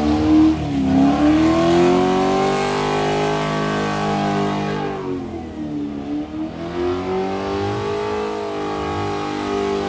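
Holden Commodore engine revving hard through a burnout, held high on the limiter with the revs sagging twice, about a second in and again around six seconds in, and climbing back each time.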